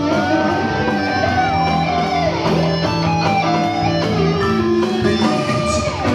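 Live rock band playing an instrumental passage between sung lines: an electric guitar line with long bent notes over bass and drums.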